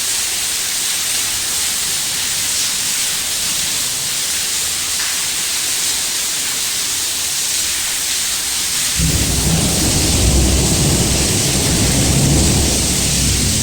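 Rushing water with a loud, steady hiss. About nine seconds in, a low rumble joins it and carries on under the hiss.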